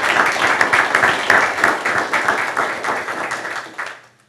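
Room of people applauding, many hands clapping at once, dying away about four seconds in.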